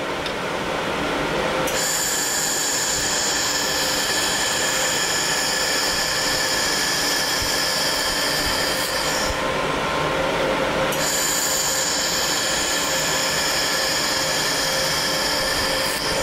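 Handheld laser welder with a seam-cleaning nozzle post-cleaning a weld bead: a steady hiss with a high, several-note whine. The whine starts about two seconds in, stops for a couple of seconds around the middle, then starts again, all over a steady background hum from the machine.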